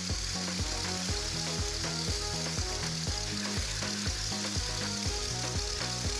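Electric hand mixer whisking eggs in a stainless steel bowl: a steady frothy hiss of beaters running through the liquid egg. Background music with a steady beat plays underneath.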